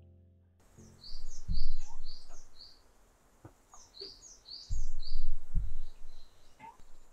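A songbird singing twice, each time a quick phrase of four or five high chirps, with a few single chirps between. Three short low thumps come with the song.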